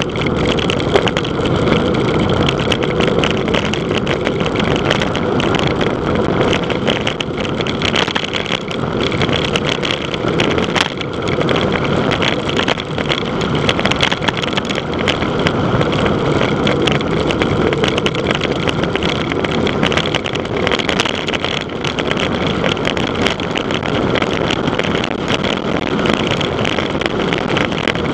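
Loud, steady wind rush buffeting a cyclist's camera microphone, the sound of a bicycle moving fast on a mountain-road descent.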